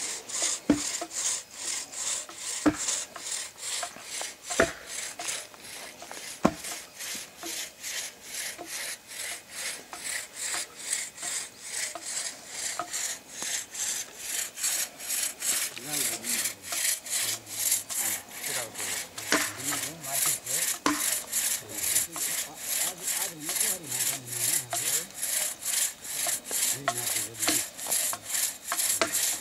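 Hand saw cutting a felled pine log, with back-and-forth strokes at a steady rhythm of about two to three a second. Four sharp knocks, about two seconds apart, sound over the sawing in the first seven seconds.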